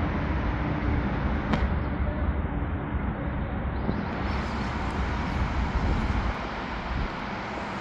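Steady outdoor street background noise, a low rumble of traffic, with a single click about one and a half seconds in.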